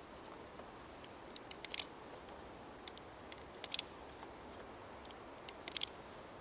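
9 mm Parabellum cartridges being pushed one by one into the double-stack magazine of an Arsenal Firearms Strike One pistol: a series of short, sharp metallic clicks at irregular intervals, some in quick pairs or clusters.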